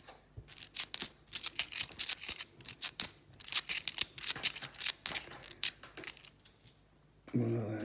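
Cupro-nickel 50p coins clinking against each other as they are thumbed off a stack in the palm one by one: a quick, uneven run of light metallic clicks that stops about six seconds in.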